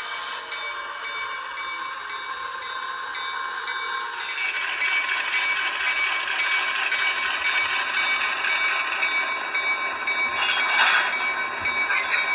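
ESU LokSound decoder's diesel switcher sound playing through the small speaker of an HO-scale Athearn switcher as it moves: the engine sound runs steadily and gets louder about four seconds in. Two short bursts of noise come near the end.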